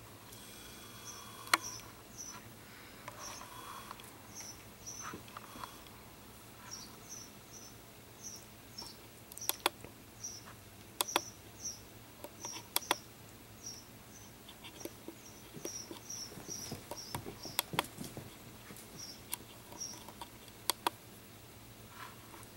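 Italian greyhound puppy playing with a plush toy on carpet: soft rustling and sharp little clicks, over many short, high chirps repeated irregularly throughout.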